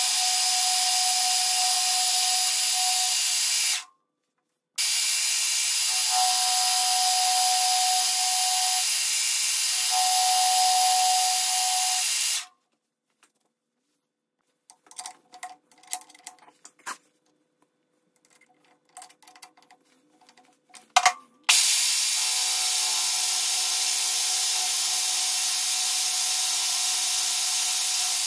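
Milling machine spindle running with an end mill cutting a groove in a metal cam part held in a vise: a steady hiss with a steady whine. It stops briefly about four seconds in. Later it falls away for about nine seconds, leaving scattered light clicks and knocks, then a sharp click, before it runs again.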